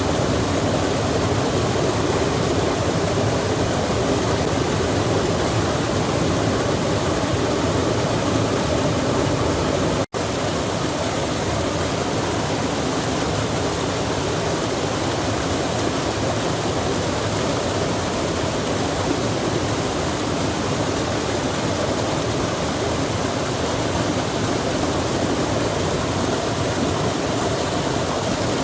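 Steady rushing of water, as from a mountain stream or waterfall, an even hiss with no changes. It cuts out for an instant about ten seconds in, then carries on unchanged.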